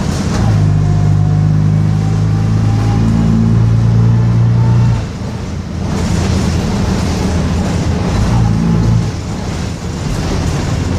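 Bristol RELL6L bus's diesel engine pulling under load, with a faint rising whine above it. It eases off about five seconds in, then pulls again and eases off near nine seconds.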